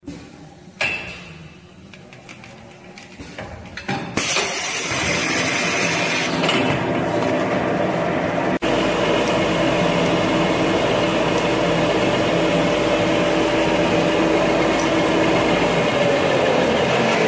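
Thermal cash-register paper slitting and rewinding machine: a few clicks while the paper is fed, then about four seconds in the machine comes up to speed and runs with a loud steady mechanical whir and rattle. Near the end a tone in it falls.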